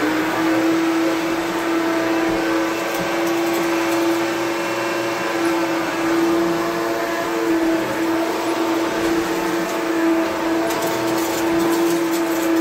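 Self-propelled upright vacuum cleaner running steadily, its motor giving a constant hum over a rush of air. A few light clicks near the end.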